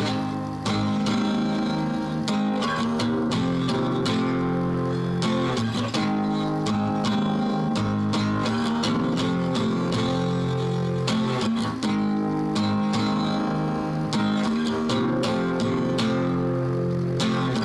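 Acoustic guitar strummed in a steady rhythm, the chords ringing on between strokes.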